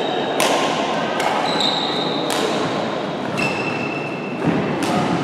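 Badminton rally in an echoing sports hall: sharp hits of rackets on the shuttlecock about once a second, with short high squeaks of court shoes on the floor between them.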